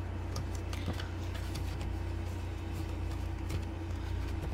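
Steady low background hum, with faint rustles and light clicks of paper cash envelopes and a ring binder being handled.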